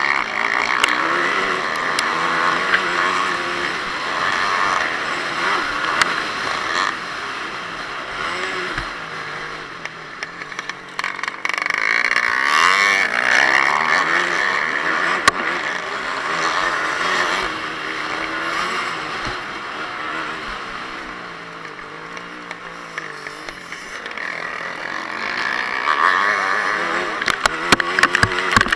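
Yamaha WR250F's four-stroke single-cylinder engine revving up and falling back again and again under race load on a dirt track, with steady wind rush on the microphone. A few sharp clicks, most near the end.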